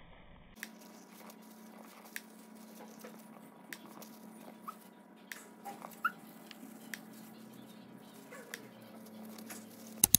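Hamster scrabbling in wood-shaving bedding in a plastic tub: scattered light clicks and rustles, with a few short high squeaks, over a faint steady hum. Two louder clicks near the end.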